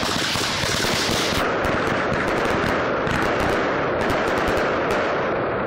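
Fireworks: a dense, unbroken run of rapid sharp cracks from many crackling effects going off at once.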